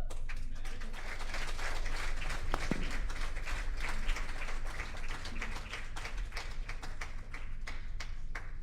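A group of people clapping. It starts suddenly and thins to scattered claps after about five seconds.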